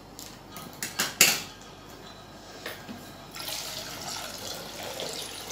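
Two sharp snips about a second in as scissors cut open a plastic milk packet, then from about three and a half seconds in a steady stream of milk pouring from the packet into a steel pot.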